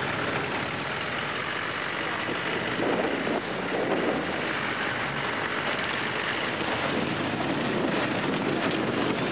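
Engines of off-road 4x4 vehicles running at idle, a steady mix of engine sound and noise without a break.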